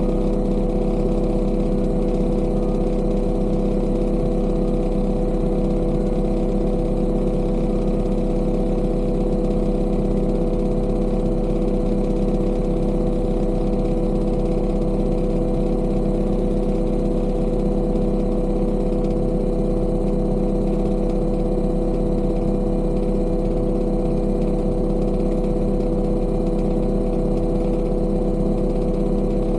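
A construction machine's engine running at a steady speed: an even drone with strong steady hum tones that neither rises nor falls.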